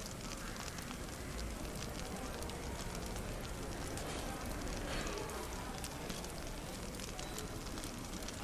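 Fireplace crackling steadily with many small pops, over a faint, indistinct murmur of café chatter.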